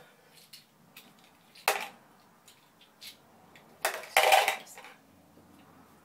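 Aerosol can of spray mount adhesive hissing in two bursts, a brief one nearly two seconds in and a longer one about four seconds in, as a replacement nozzle tip is tried on the clogged can. Faint clicks of handling between the bursts.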